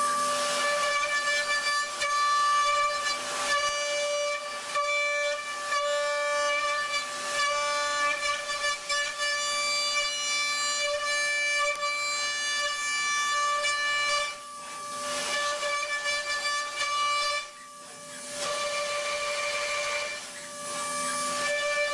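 CNC milling cutter machining metal, giving a steady high-pitched whine with several overtones, which drops out briefly three times in the second half as the cut breaks off.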